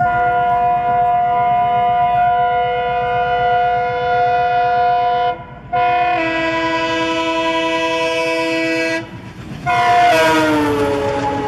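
Indian Railways WDM3D diesel locomotive sounding its air horn in three long blasts as it approaches, with a lower note joining partway through the second. Engine and wheel rumble run underneath. The last blast, near the end, falls in pitch as the locomotive passes close by.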